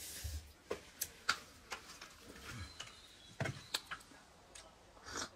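Scattered light clicks and knocks of small objects being handled, about ten of them at uneven intervals.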